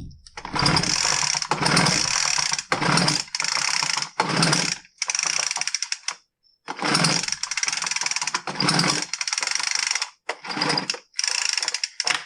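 Poulan Pro BVM200VS handheld blower's two-stroke engine being cranked with the recoil pull starter about ten times in quick succession, a whirring burst with each pull, never catching: a no-start. The cranking sound is not right for a healthy engine.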